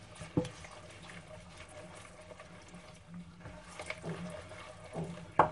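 A hand squelching and sloshing a wet mix of eggs, sugar and oil in a bowl, with a few short knocks, the loudest near the end.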